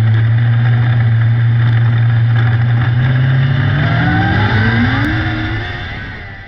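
600cc micro sprint car engine running steadily, then revving up with a rising pitch while fading away near the end.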